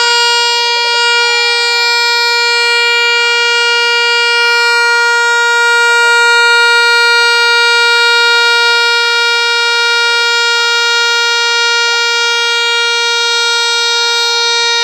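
Air escaping from a large balloon, sounding one long, loud horn-like tone that holds a steady pitch without wavering.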